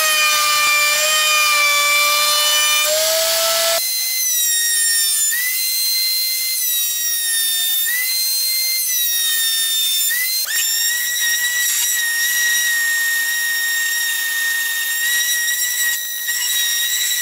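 Table-mounted wood router with a chamfer bit spinning at high speed: a steady high whine that sags and recovers slightly in pitch as the bit cuts the oak. From about ten seconds in, a handheld power sander runs on the board's edge with a steady whine.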